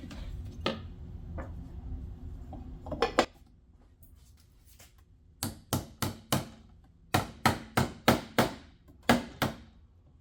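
Hammer strikes on wood: about eleven sharp taps in three quick groups, after a low steady rumble with a couple of knocks that cuts off about three seconds in.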